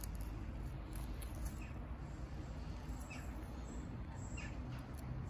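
Steady outdoor background noise with low rumble, with a few faint, short bird chirps scattered through it.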